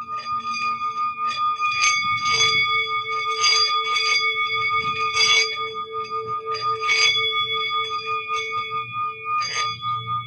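Singing bowls ringing with several steady overlapping tones, the lowest one wavering in a fast, even pulse. About seven sharper struck metallic accents ring out over the sustained tones.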